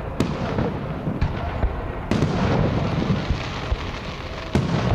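Aerial firework shells bursting overhead: sharp booms near the start, about two seconds in and near the end, with smaller pops between and a continuous low rumble and crackle.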